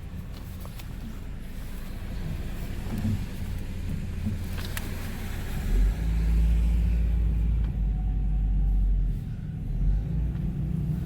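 A motor vehicle running with a steady low rumble that swells much louder for a few seconds from about halfway through, then eases back.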